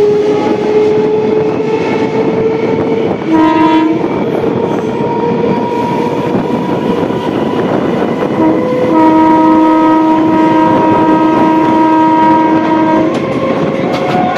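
Electric suburban EMU local train running at speed, heard from its open doorway: a loud rush of wheels and wind, with a steady whine that slowly rises in pitch. A train horn sounds briefly about three seconds in, then gives a short toot followed by a long blast from about nine to thirteen seconds.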